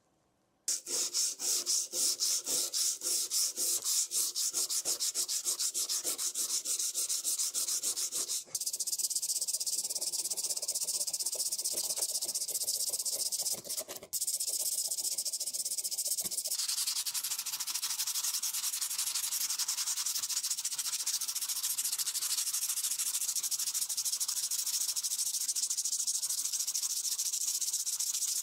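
Abrasive sanding on the bike's front fork, in fast back-and-forth strokes for the first several seconds, then a steadier scraping hiss with two brief pauses.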